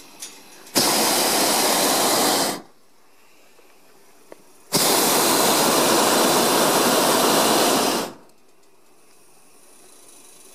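Hot-air balloon's propane burner firing in two blasts, the first about a second in and lasting about two seconds, the second lasting about three seconds; each starts and stops abruptly.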